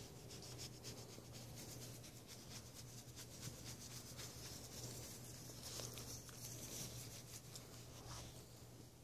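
Faint, rapid, scratchy rubbing: a hand scratching a small dog's fur, with the dog shifting on the quilted bedspread. A steady low hum runs underneath.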